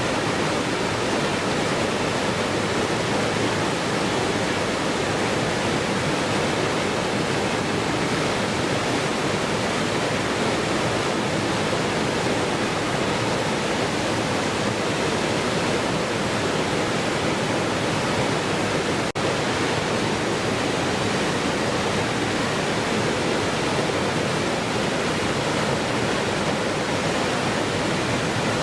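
Waterfall: falling water making a steady, even rushing noise, with a tiny break about two-thirds of the way through.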